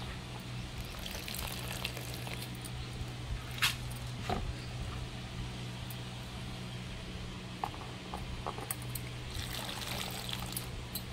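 Hands swishing young tamarind leaves (chugur) in a tub of water and lifting them out, with water dripping and trickling back. A couple of light knocks come about four seconds in, and a steady low hum runs underneath.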